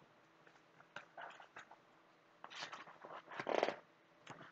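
Faint paper rustling and handling clicks in several short bursts: a picture book's page being turned.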